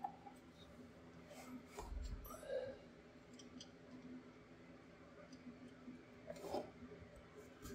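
Faint clicks and handling noise as a red air line is pushed into a brass push-to-connect elbow fitting on a rear air bag, with a low thump about two seconds in.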